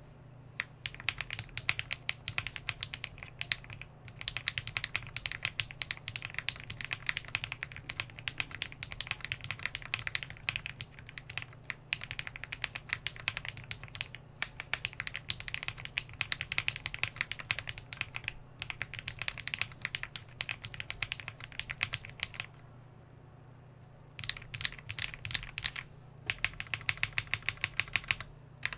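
Typing on a JRIS65 aluminum gasket-mounted keyboard with KTT Sea Salt Lemon switches, GMK keycaps and case and plate foam: a steady stream of keystrokes. The typing pauses for about a second and a half around two-thirds of the way in, then resumes faster near the end.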